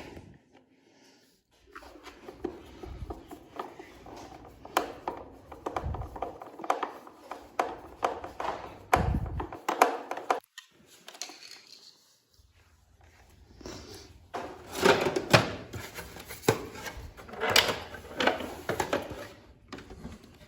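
Irregular knocks, clicks and rattles of hard parts being handled, as a vacuum cleaner is worked on by hand, with a pause of about three seconds midway. No motor is running.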